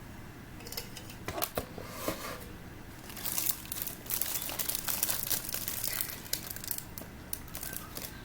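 Plastic sweets wrapper crinkling as it is handled, in irregular crackly bursts that are busiest in the middle.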